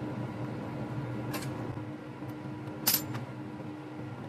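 Two small metallic clinks, a light one and then a louder one, as MIG torch consumables (contact tip and nozzle) are handled and fitted, over a steady low hum.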